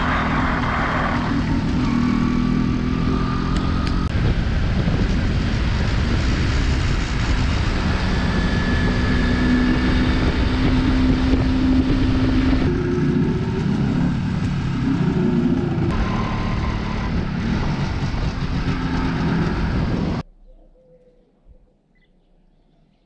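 MZ ETZ 250's single-cylinder two-stroke engine under way, its pitch rising and falling with throttle and gear changes. About twenty seconds in it cuts off abruptly to near quiet.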